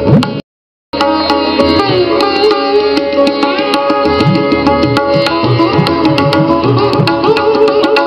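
Background music with a steady beat and held pitched notes. It drops out completely for about half a second near the start, at an edit.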